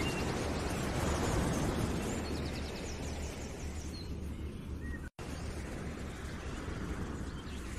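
Steady rushing outdoor ambience with a few faint bird chirps and trills, cutting out completely for an instant about five seconds in.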